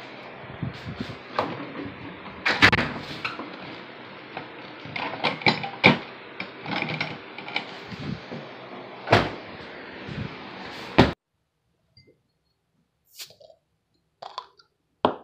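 Knocks, clunks and handling noise of someone moving about a small room and picking things up, over a steady hiss. It cuts off abruptly about 11 seconds in, leaving a few small clicks.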